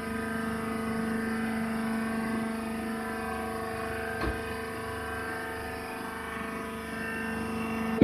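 Hydraulic rice husk baler's power unit (motor and hydraulic pump) running with a steady hum, with a single short knock about four seconds in.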